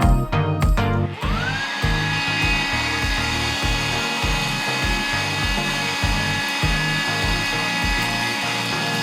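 A small electric motor spins up about a second in, its whine rising and then holding steady with a rush of air, as a homemade vacuum cleaner runs. Background music with a steady beat plays underneath.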